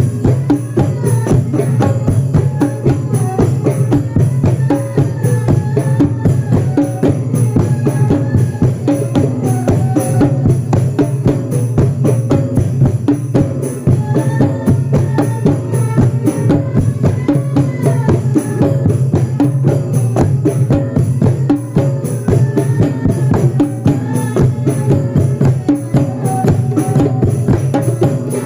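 Percussion music: drums struck in a dense, fast, unbroken beat, with a wavering melody line over it.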